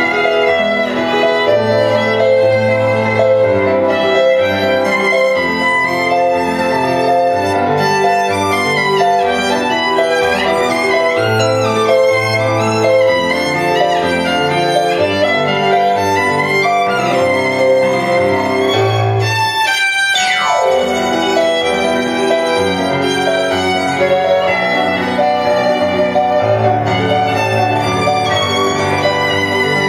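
A violin played live in a fast, busy passage, over an accompaniment that carries low bass notes.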